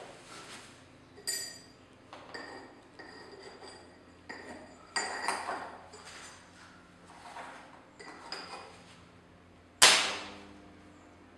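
Copper cable lugs clinking against a metal plate several times, each clink with a brief metallic ring. About ten seconds in comes a loud sharp crack of arcing as a lug on the high-current transformer's low-voltage secondary touches the plate and throws sparks, fading over about a second. A faint steady low hum runs underneath.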